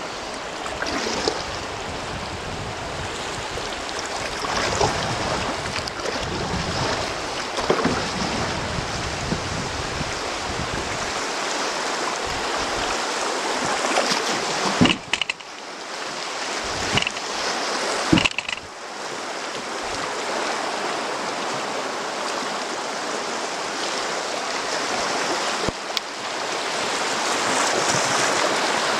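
River water rushing and splashing around a small boat drifting into a shallow rocky rapid, getting louder near the end as the boat reaches whitewater. Wind buffets the microphone for the first ten seconds or so, and a few sharp knocks come around the middle.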